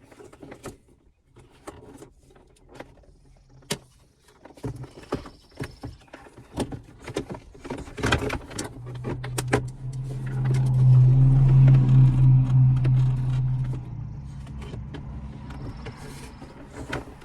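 Clicks and rattles of plastic trim and wiring-harness connectors being handled and plugged together. About halfway through, a steady low motor hum runs for about five seconds and then stops.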